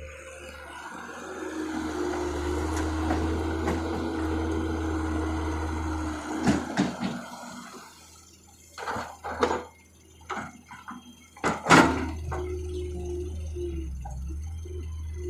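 Wet mud being unloaded from a tractor trolley over the low hum of a running engine: a steady rushing slide for about the first six seconds, then a series of sharp knocks and clunks, the loudest near the end.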